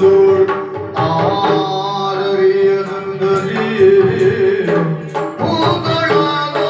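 Yakshagana music: a voice or drone holding a long steady note, with quick hand-drum strokes over it.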